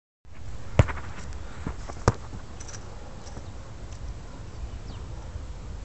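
Steady low rumble of wind on the microphone, with two sharp knocks, one about a second in and one about two seconds in, and a few fainter ticks between them.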